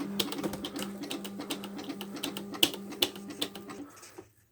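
Smith Corona 250 DLE electronic typewriter being typed on: a quick, continuous run of keystroke clicks over a steady hum, both stopping shortly before the end.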